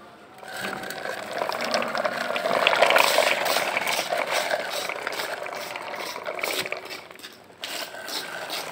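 Wheels of a toy tractor and its soil-loaded trolley rolling and scraping over gritty concrete as they are pushed along: a steady rough rolling noise, loudest about three seconds in, that drops off briefly near the end before starting again.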